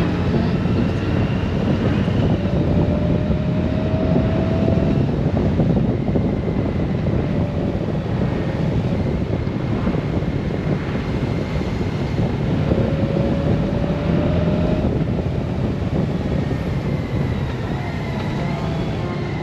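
Honda Gold Wing motorcycle on the move at road speed: a steady rush of wind, engine and tyre noise, with a faint whine that rises slowly twice.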